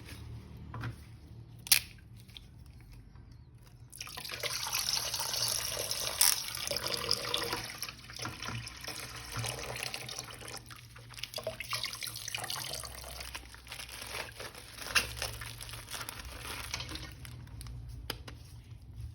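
Water running and splashing as a toy figure is washed, starting about four seconds in and easing off near the end, after a couple of sharp clicks.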